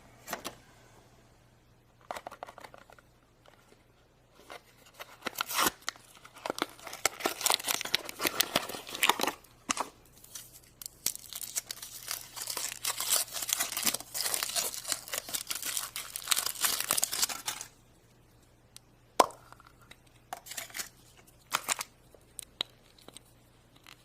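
Foil wrapper of a chocolate surprise egg crinkling and tearing as it is unwrapped by hand, in stretches of crackling, then a few sharp clicks near the end.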